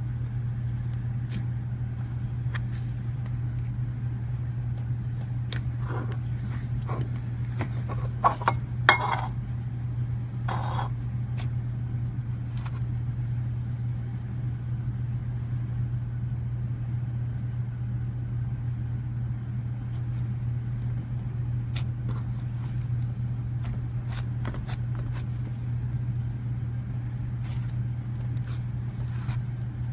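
Slime being squeezed and stretched by hand, with scattered sticky clicks and pops, busiest and loudest from about six to eleven seconds in, over a steady low hum.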